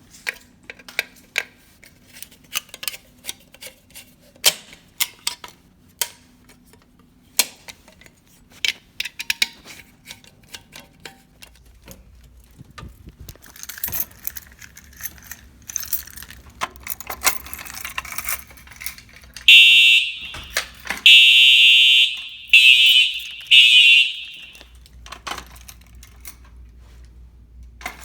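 Fire alarm horns of a Simplex 4010 system sounding in loud blasts of about a second each with short gaps, starting about two-thirds in, four blasts in all. Before them there are scattered light clicks and rattles.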